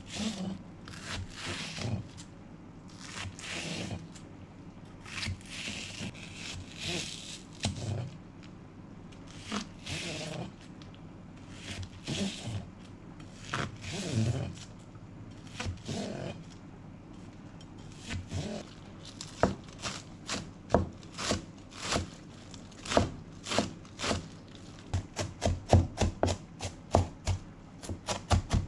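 A kitchen knife slices lengthwise through Japanese long onions (negi) on a board, with irregular scraping strokes about once a second. From about twenty seconds in it switches to chopping them finely, with sharp knocks of the blade on the board that quicken toward the end.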